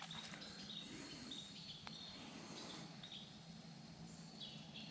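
Faint outdoor ambience: a steady low hum with scattered short, high chirps.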